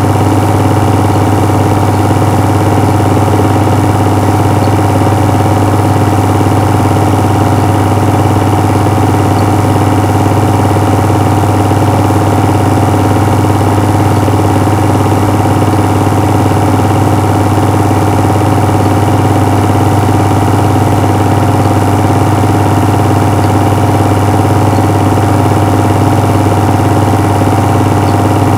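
A steady, loud low hum, unchanging throughout, with no sound from the filmed scene itself.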